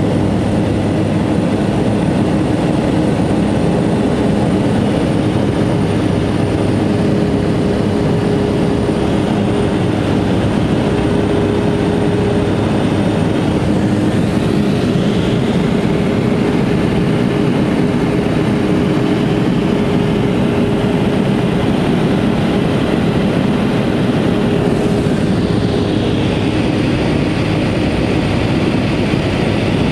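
Pilatus Porter's engine and propeller running steadily, heard loud from inside the small plane's cabin on the approach to a glacier snow landing.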